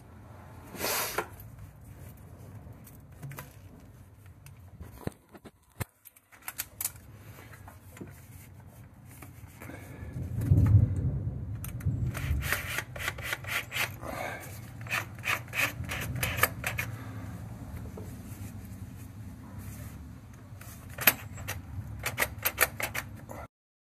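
Copper pipe and a metal pipe strap being handled against a concrete wall. From about halfway, a power driver on a long extension bit runs in several short spells of rapid clicking, driving the screw that tacks the strap to the wall.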